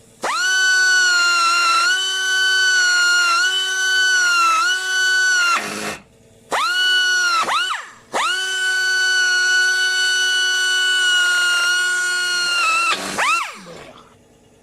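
Electric drill spinning a milling cutter to open up the hole in a welded aluminium steering knuckle, in three runs. Each run spins up quickly to a steady high whine, dips slightly in pitch as the cutter bites, and winds down when released.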